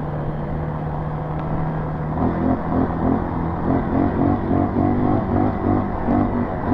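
Dirt bike engine at wide open throttle on a rough, rutted trail: a steady drone for about two seconds, then the engine note rising and falling about twice a second as the bike bounces over the bumps.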